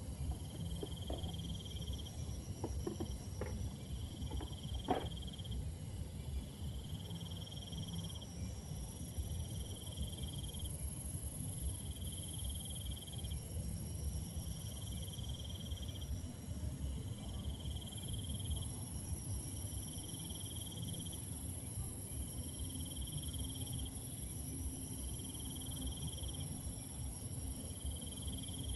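Night insects chirping: a pulsed trill repeats about every second and a half to two seconds over a steady, high-pitched insect drone, with a low rumble underneath. A few sharp clicks come in the first five seconds.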